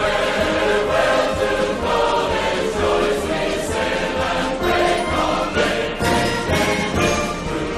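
Choir singing with instrumental accompaniment.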